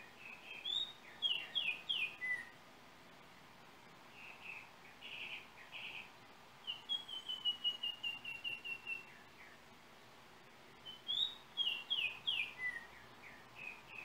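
Yellow oriole singing: short phrases of clear, whistled notes, with a run of about a dozen quick notes falling slightly in pitch in the middle, and another phrase near the end.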